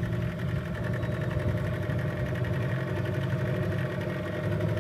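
Engine of a small wooden boat running steadily at a constant speed while the boat is underway.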